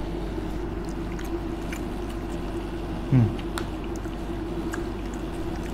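A man eating aloo tikki from a plate: faint chewing and small clicks of a spoon against the plate over a steady background hum, with a short low falling 'mm' about three seconds in.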